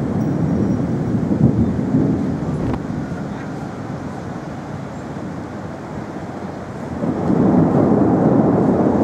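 Rolling thunder from a rainstorm: a low rumble that eases off through the middle and swells again about seven seconds in.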